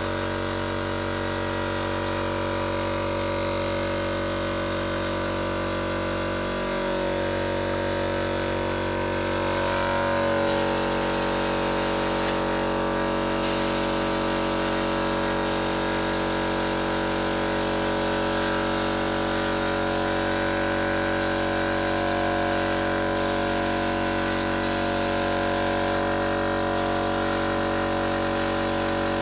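Compressed-air spray gun hissing in long sprays from about ten seconds in, with a few short breaks where the trigger is let go. Under it, the steady hum of a running motor, likely the air compressor feeding the gun.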